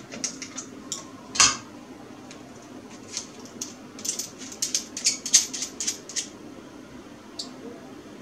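Small, sharp metallic clicks and clinks of metal hand tools being picked up and handled, one louder clack about a second and a half in and a quick cluster of clinks between about four and six seconds.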